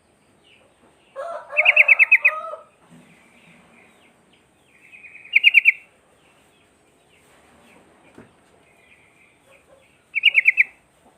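Sooty-headed bulbul (kutilang) singing: three loud bursts of quick repeated notes, about one, five and ten seconds in, with softer warbling phrases between. A lower, rougher call overlaps the first burst.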